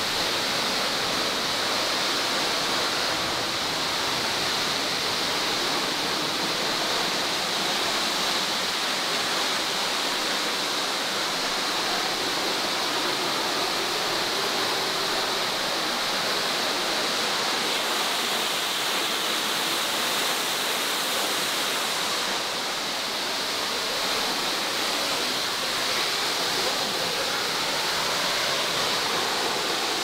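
A waterfall's steady, even rush of falling water.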